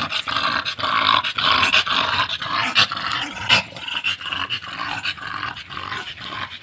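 American Bully dog panting hard with its mouth open, a fast run of heavy breaths close to the microphone. Two sharp clicks come near the middle.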